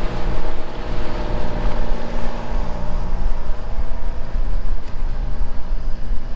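A motoring catamaran's engine running steadily under way, with wind buffeting the microphone and water rushing past the hull.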